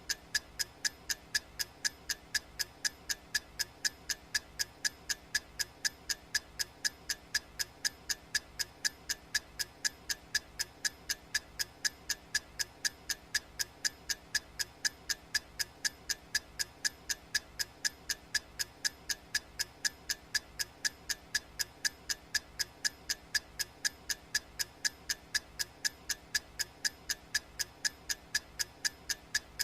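Clock ticking steadily, about two ticks a second, each tick a short sharp click.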